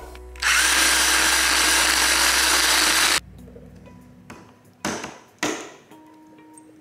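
Ryobi cordless drill running steadily for about three seconds and then stopping suddenly, followed by two short bursts.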